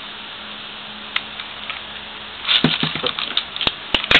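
Two metal-wheel Beyblade tops, Meteo L-Drago and Herculeo, spinning in a stadium with a steady whirr. From about two and a half seconds in comes a quick run of sharp clicks as they knock together.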